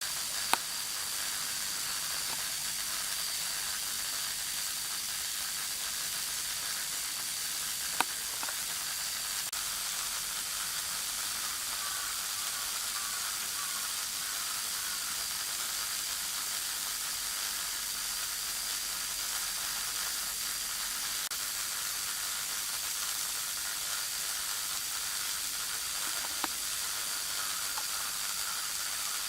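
Corona discharge on a steel high-voltage transmission tower: a steady electrical sizzling hiss, 'jii jii jii', with three sharp clicks through it. The uploader first suspected sparking from salt deposits left by a typhoon, but takes it for ordinary corona discharge.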